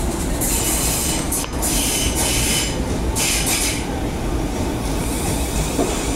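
Southeastern electric multiple-unit train running slowly through the platform: a steady low rumble of wheels on rail, with several bursts of high rushing, hissing noise in the first few seconds.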